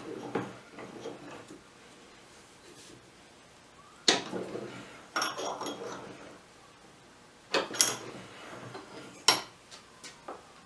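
Hard objects being handled and set down: a series of clinks and knocks, about five separate clatters with short ringing, the sharpest near the end followed by a few faint ticks.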